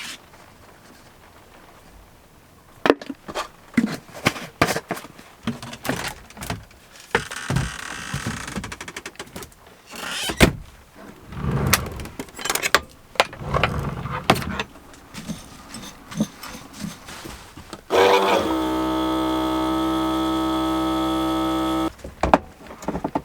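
Food containers and utensils knocking and clicking during kitchen prep, with a brief shaking or pouring hiss, then a small electric motor running steadily for about four seconds and cutting off abruptly.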